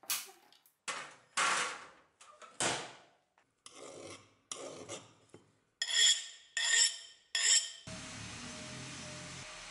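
Steel cleaver blade clattering and scraping as it is handled on a wooden workbench, ending in three ringing metallic clinks. About eight seconds in, an angle grinder with a flap disc starts running steadily with a constant whine.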